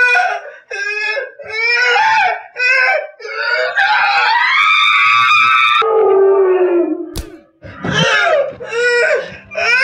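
Loud screaming and shrieking in short panicked cries, with one long drawn-out scream that rises and holds in the middle. A single sharp knock comes about seven seconds in, followed by more screams.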